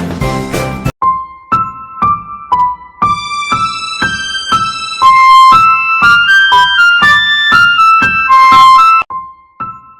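Intro music: a simple keyboard melody of short, separate notes, about two a second. A fuller chord-backed passage cuts off about a second in, and the notes play louder through the middle before softening near the end.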